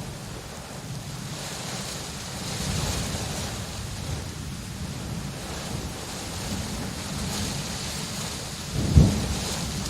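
Steady rain with slow swells in intensity, and a single sudden low thump about nine seconds in, the loudest moment.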